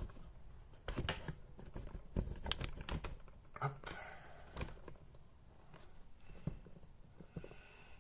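Handling noises from a camera being lowered and repositioned over a desk: a string of light clicks and knocks, with some paper rustling from the instruction sheet.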